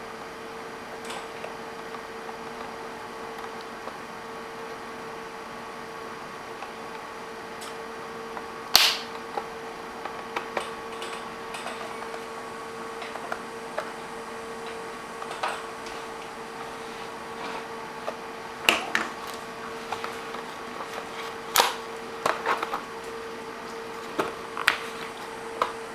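Scattered sharp clicks and taps from laptop parts being handled, with a handful of louder clicks spread through, over a steady hum.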